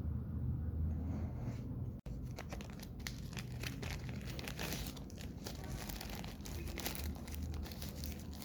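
Product packaging being handled and crinkled: a dense run of irregular crackles and rustles that starts about two seconds in, just after a brief cut in the sound.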